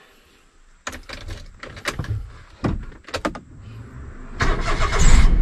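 Perodua Kenari checked in the cabin for a brake-related noise: a string of sharp clicks and knocks, then a louder rumbling rush about four seconds in.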